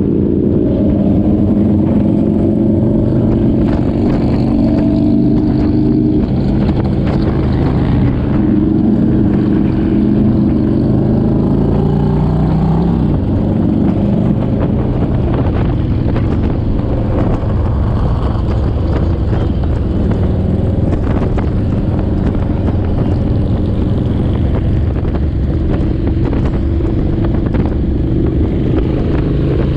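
Motorcycle engine running on the move, its note rising and falling with the throttle, over a steady rushing noise.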